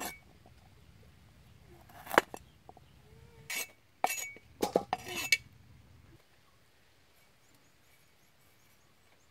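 Sharp knocks and clinks of a steel cleaver and a stainless steel bowl while ginger is chopped on a wooden board and the herbs are handled. The loudest knock comes about two seconds in, and a quick cluster of clinks follows between three and a half and five and a half seconds in.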